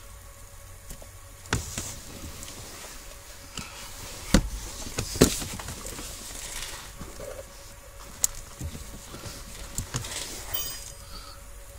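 Handling noise from wiring being worked into a plastic harness connector by hand: a handful of sharp clicks and taps of plastic and pin, the loudest about four and five seconds in, with rustling of wires between.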